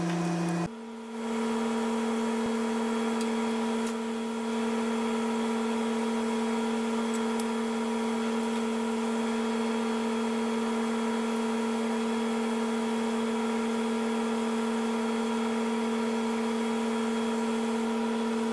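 Steady hum made of a few clear tones, stepping up in pitch once, with a brief drop in level, less than a second in, then holding steady.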